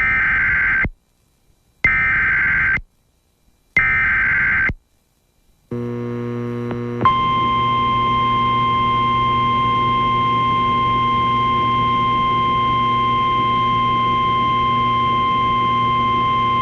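Emergency Alert System SAME header: three bursts of rapid digital data tones, each about a second long and about a second apart. A low buzzing hum then comes in, and about seven seconds in a long, steady attention tone starts over it.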